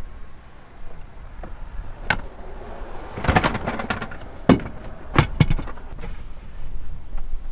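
Plywood bed-platform panels knocking and clattering as they are lifted, shifted and laid down in a car's cargo area. There is a single knock, then a burst of clatter about three seconds in, then louder knocks around the middle.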